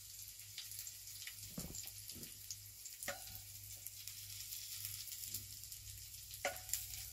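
Rendered chorizo fat frying faintly in a pan, a steady soft sizzle, with a few light knocks of a wooden spoon as the chorizo is lifted out into a bowl.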